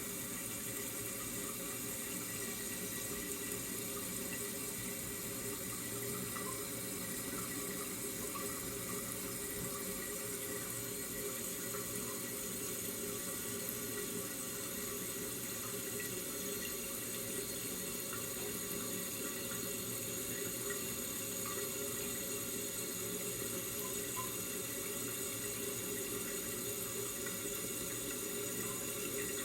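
Toilet tank refilling, water running steadily through the fill valve.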